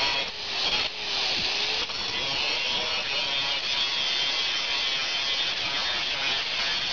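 Corded angle grinder with a thin cut-off wheel cutting through a steel rod, the motor whine and the rasp of the wheel on the metal running steadily, with two brief drops in the first second.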